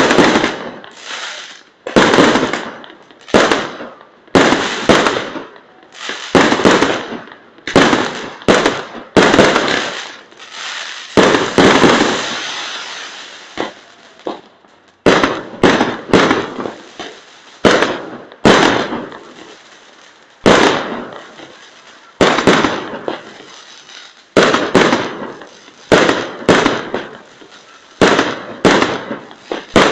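Aerial fireworks bursting in quick succession: sharp bangs roughly every second, each with a short fading tail, and a longer drawn-out hiss about halfway through.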